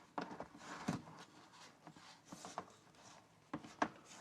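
Faint handling noises of a hard plastic and rubber tablet case on a tablet: scattered light clicks and short rubs.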